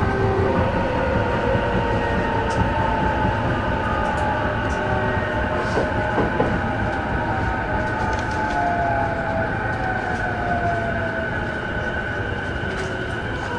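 Interior running sound of an E233 series 5000 electric train: a steady rumble of wheels on rail under several whining inverter and traction-motor tones that slowly fall in pitch as the train slows, with a few sharp clicks.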